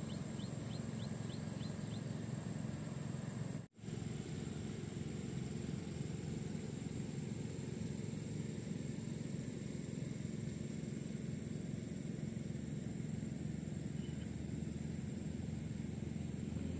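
Steady outdoor riverside ambience: a low rumble with a thin, steady high-pitched whine over it, and a quick run of faint ticks in the first two seconds. The sound cuts out briefly about four seconds in, then the same ambience carries on.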